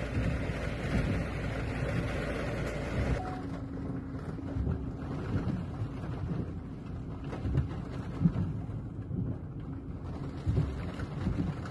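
A vehicle driving through deep floodwater, water rushing and sloshing against it over a low engine hum, heard from inside the car. About three seconds in the sound turns duller and lower.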